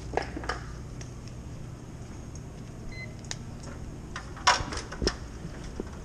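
Scattered knocks and clatter of tools and gear being handled, the loudest a sharp clatter about four and a half seconds in, over a steady low hum.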